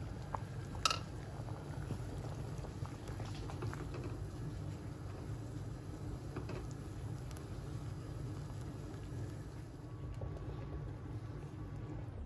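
Pot of soup simmering and bubbling steadily on a stove, stirred with a wooden spoon. A single sharp ringing clink about a second in.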